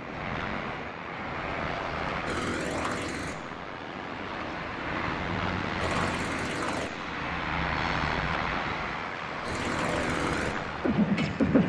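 Steady, machine-like noise drone from an electroacoustic industrial soundtrack. A band of high hiss swells in and drops out three times, roughly every three and a half seconds.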